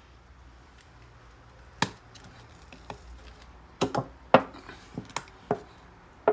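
Lid of a metal paint tin being knocked down shut by hand: a single sharp knock about two seconds in, then a run of quick knocks from about four seconds on.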